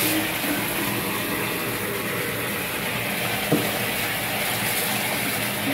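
Shower water running steadily into a bathtub, with a single short knock about three and a half seconds in.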